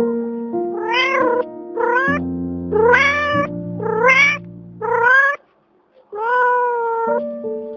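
Domestic cat meowing six times, each meow rising in pitch, the last one longer and flatter. Background music with held notes plays underneath.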